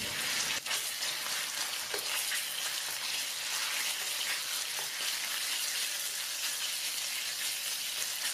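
Raw chicken pieces sizzling in hot oil in a non-stick electric wok, a steady frying hiss, stirred with a wooden spoon that gives a few faint clicks.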